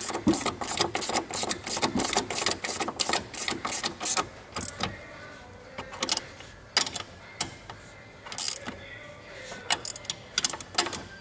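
Two steel 13 mm spanners clicking on nuts and the metal bracket as the Water Watch unit's mounting bolts are tightened: a quick, even run of clicks for the first four seconds or so, then scattered single clicks and short clusters.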